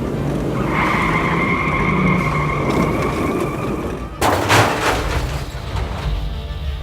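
A substituted sound effect: a steady, high screech like skidding tyres, lasting about three and a half seconds over a low rumble, cut off by a sudden loud crash about four seconds in.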